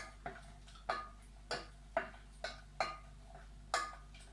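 A metal ladle clicking against the side of a cooking pot while butter is stirred as it melts, a light click about every half second to second.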